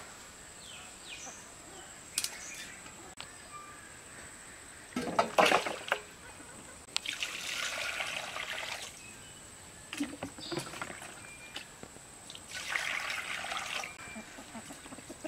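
Water poured from a plastic mug over raw chicken pieces in an aluminium basin, splashing and sloshing as the chicken is washed by hand. A loud splash comes about five seconds in, then two pours of a second or two each.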